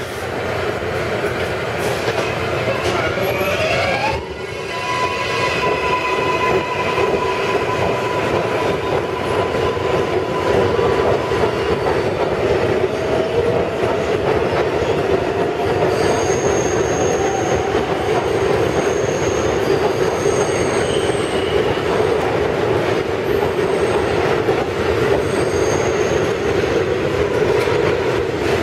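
R142A subway train pulling out of the station: a whine rises in pitch as it accelerates a few seconds in. The cars then run past with steady wheel-and-rail noise, broken by short high-pitched wheel squeals in the second half.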